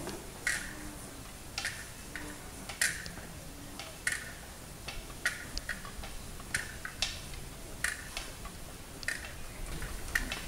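Hard, sharp taps of people walking on stone paving, roughly one a second with a few closer together, over a low steady background.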